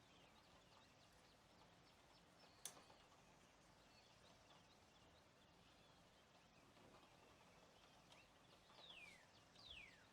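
Near silence with a faint hiss and scattered tiny bird chirps. A single sharp tick comes about a quarter of the way in, and near the end two clear whistled calls each fall steeply in pitch.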